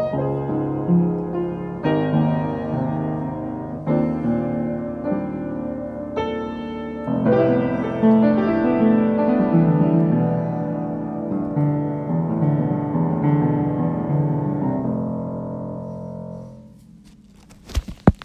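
Piano music that fades out near the end, followed by a few sharp clicks.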